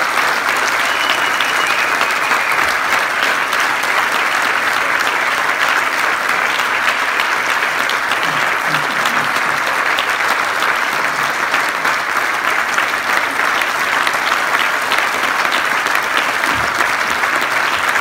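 A large audience applauding steadily and without letup, a dense wash of many hands clapping.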